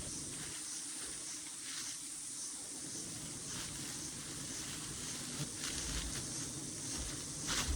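Steady high-pitched drone of forest insects, pulsing about two to three times a second, with a few brief rustles; the loudest comes near the end.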